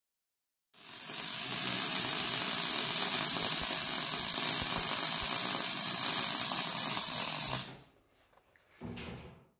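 MIG welder arc running steadily on steel tube for about seven seconds, then stopping; a short second burst of welding comes near the end.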